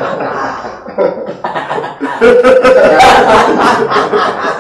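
A man laughing, quieter at first, then a louder run of pulsing laughter about two seconds in.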